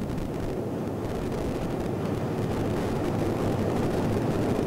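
Steady rushing noise of a jet aircraft in flight, engine and airflow noise together, growing slightly louder.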